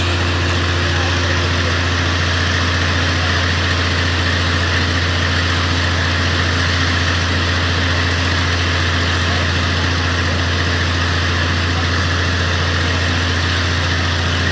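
A large engine idling steadily, a low, even drone that never changes pace.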